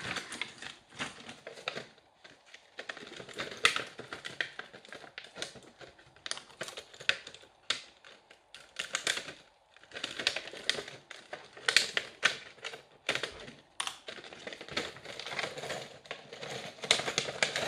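Clear plastic packaging of Christmas baubles crinkling and crackling as it is handled and pulled open, in many irregular sharp clicks with short pauses.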